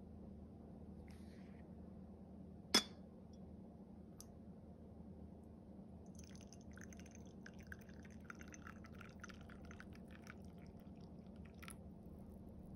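A single sharp clink of china about three seconds in. Then tea pours in a thin stream from a ceramic teapot into a china cup for about six seconds, stopping near the end.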